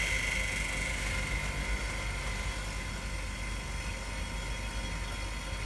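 Screen laminator running its automatic cycle, a steady machine whir with a low hum. A thin high whine fades out about a second in.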